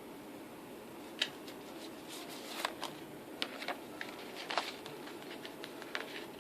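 Packaging of a boxed disc set being handled: an irregular run of sharp clicks, taps and short rustles, starting about a second in, over a steady low hum.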